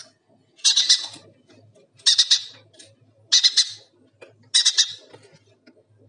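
A parrot chick calling loudly four times, one call about every second and a quarter, each call about half a second long and noisy rather than whistled.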